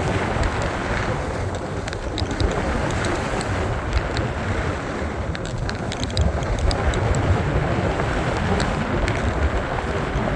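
Wind buffeting the microphone during a snowboard run, a steady low rumble, with the board hissing over the snow and scattered small crackling ticks.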